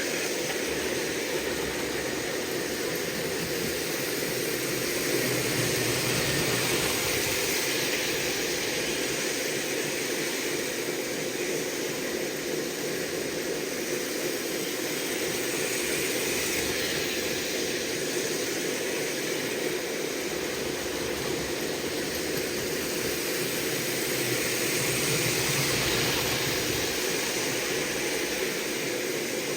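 A New York Central train running: a steady rolling noise with no distinct strokes, swelling gently twice as it draws nearer and fading back between.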